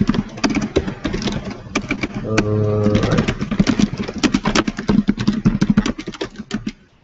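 Quick typing on a computer keyboard, keys clicking in fast irregular runs, with a brief steady low hum about two and a half seconds in.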